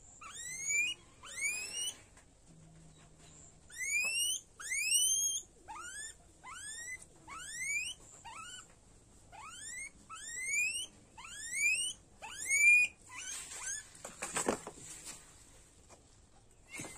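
Guinea pig squealing while being held and given an injection under the skin: a rapid string of short, steeply rising squeaks, about two a second. The squeals stop about thirteen seconds in, followed by a brief burst of scuffling noise.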